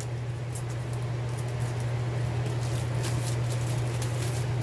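A steady low hum with light scratching and rustling of hands working over it.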